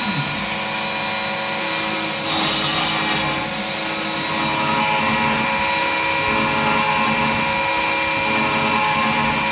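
Homemade belt-driven CNC machine running: a steady motor whine of several tones, with a louder burst of hiss about two seconds in that lasts about a second.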